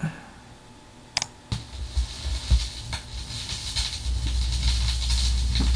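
Playback of a vinyl 45's recorded lead-in groove: surface hiss with a couple of sharp clicks about a second in. A low rumble builds in about four seconds in.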